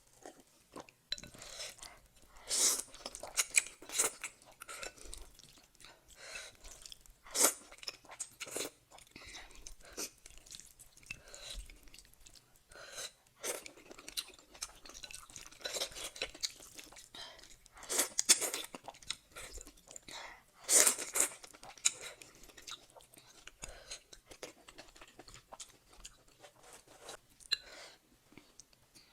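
Close-miked chewing and crunching of food, with irregular crisp crunches among softer, wetter chewing.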